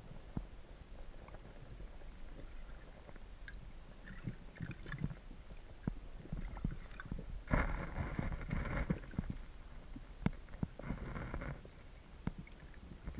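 Underwater stream sound heard through a GoPro's housing: a low rumble of current with scattered small clicks and ticks. A louder rushing hiss comes in about seven and a half seconds in for over a second, and again briefly about eleven seconds in.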